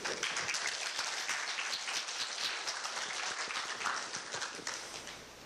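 Audience applauding, the clapping thinning out near the end.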